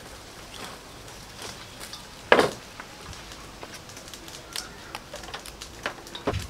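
Light clicks and crackles of hands handling fresh lemongrass and green leaves, with one louder thump a little over two seconds in as the bundle of lemongrass stalks is set down into a stainless steel bowl.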